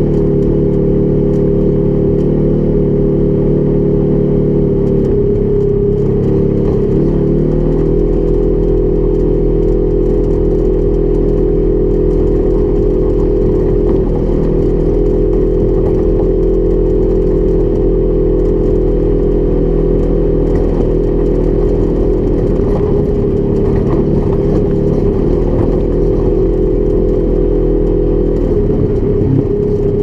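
Polaris 1000 XP side-by-side's twin-cylinder engine running steadily while driving, its pitch shifting about five to eight seconds in and then holding steady.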